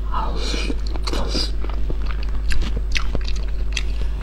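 A person biting into and chewing a mouthful of stewed food close to a microphone, with many small sharp clicks and wet mouth sounds. A steady low hum runs underneath.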